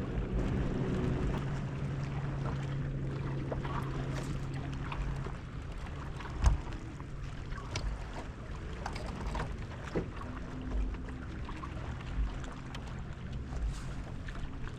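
A boat motor hums steadily for about five seconds and then stops. Scattered light clicks follow, with one sharp thump about six and a half seconds in, amid low rumbles that come and go.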